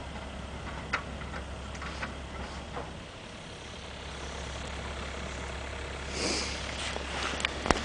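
Bobcat 430 ZHS mini excavator's diesel engine idling steadily, with scattered light clicks, a brief rustle about six seconds in and a sharp click near the end.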